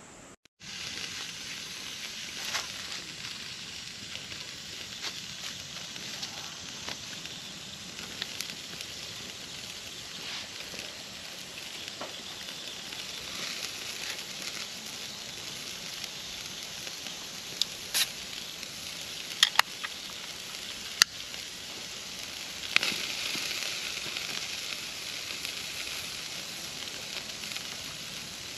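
Food frying in a pan: a steady sizzle with scattered small crackles and a few sharp, loud pops of spitting fat a little past the middle.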